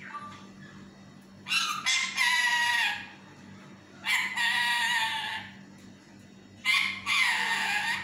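Lutino Indian ringneck parakeet giving three loud, drawn-out calls, each over a second long.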